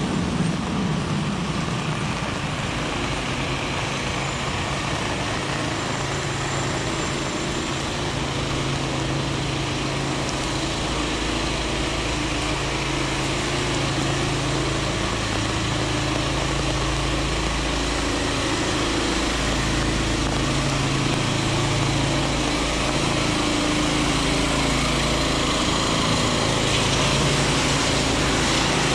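Heavy rain falling on a city street, with a motor vehicle's engine running steadily under it; the low engine hum grows stronger from about ten seconds in.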